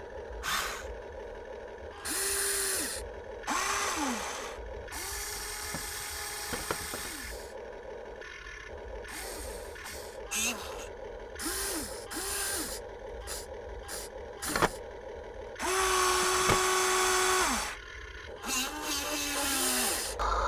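Small electric motors and plastic gearboxes of radio-controlled toy construction machines whirring in short bursts, each one spinning up and winding down, a dozen or so starts and stops, with the longest run about two seconds near the end.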